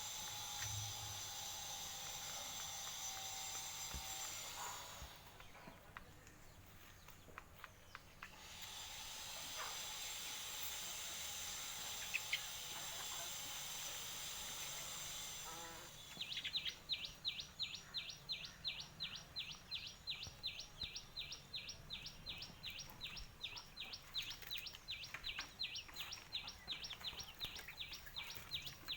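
A high-pitched insect drone, dropping away for a few seconds and then resuming. About halfway through it gives way to a rhythmic high chirping, about three to four pulses a second.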